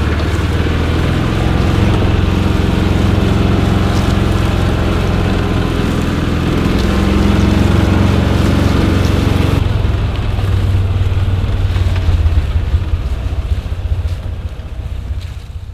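Off-road vehicle's engine running steadily as it drives over a rough grassy trail. The sound eases somewhat about ten seconds in and fades out at the very end.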